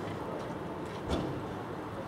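Steady low background noise with a single brief knock about a second in.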